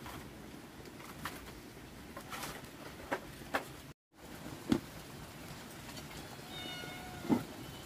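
A few scattered sharp knocks and clatters, with a short high-pitched animal call about six and a half seconds in; the sound cuts out for a moment about four seconds in.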